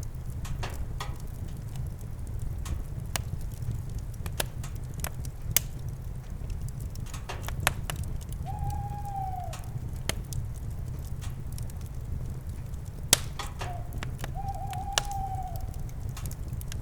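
Campfire crackling with scattered sharp pops over a steady low rumble. An owl hoots twice: one drawn-out call that falls at its end about halfway through, and a short note followed by a longer call near the end.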